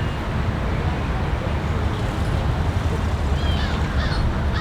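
Steady low rumble, with several short chirping bird calls starting about three and a half seconds in.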